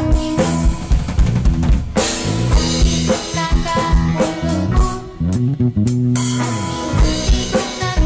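Upbeat children's song with a drum kit beat, bass and guitar, and a child's voice singing Indonesian lyrics.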